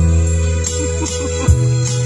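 Karaoke backing music with held bass notes and keyboard chords that change pitch, and a sharp beat about one and a half seconds in.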